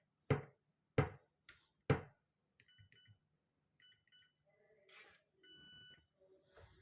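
Tronic Slim digital cabinet lock's keypad being used to set a new code: three sharp taps, then quick strings of short electronic beeps as keys are pressed, and a longer confirming beep near the end.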